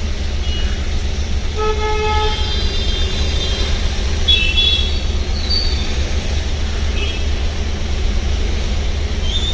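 Street traffic with a steady low rumble and vehicle horns tooting: one lower horn blast about one and a half seconds in, and shorter higher-pitched toots around four to five seconds in and near the end.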